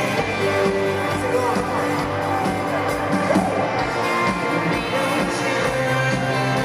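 Live rock band playing through a festival PA, heard from within the audience: electric guitar and bass over a steady drum beat.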